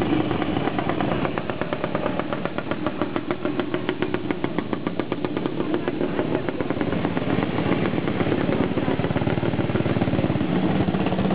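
Vintage motorcycles riding slowly past, their engines running with a rapid, even exhaust beat that stands out for several seconds, over the steady hum of other engines.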